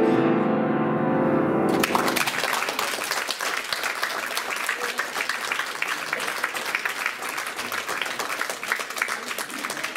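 Grand piano's closing chord ringing, cut off about two seconds in, then an audience applauding.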